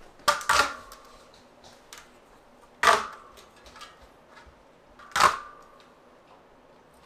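A bicycle wheel rim being handled while rim tape is set into it: three short, sharp noises, the first one doubled, each followed by a brief ring from the rim.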